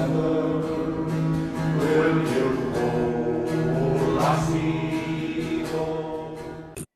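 Music: singing over a plucked acoustic guitar, cutting off abruptly near the end.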